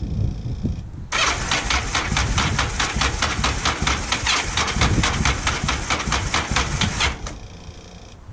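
Yamaha XVS1100 Dragstar's air-cooled V-twin being cranked on the electric starter for about six seconds, turning over with a fast, even beat without catching, then stopping abruptly when the starter is released. The bike had not been started for a while.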